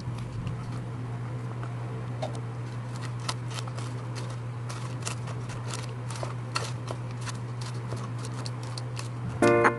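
Kitchen knife cutting crispy fried pork belly on a cutting board: irregular crunches and knocks as the blade goes through the crackling skin and hits the board, over a steady low hum. Music with piano-like notes comes in near the end.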